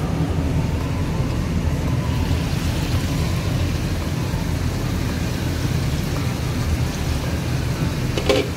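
Steady low rumble with a light hiss as chicken fries in oil in a pot on the stove, and a short clatter near the end.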